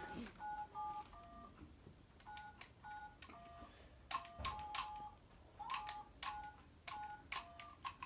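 Keypad beeps from a toy phone as a number is dialled: many short two-note tones, each with a button click, coming in quick runs of three to five presses.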